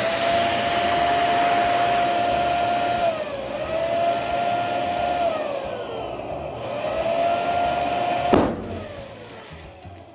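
Electric balloon pump blowing air in three runs, its motor tone sagging briefly between them as the balloons are inflated. Near the end a single sharp bang sounds, and the motor winds down.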